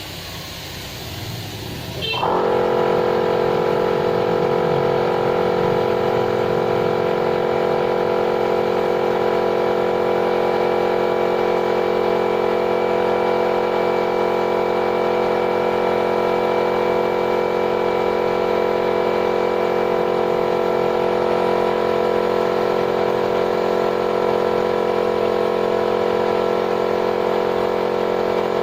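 Motor of paint-spraying equipment switching on suddenly about two seconds in and then running loud at one steady, unchanging pitch.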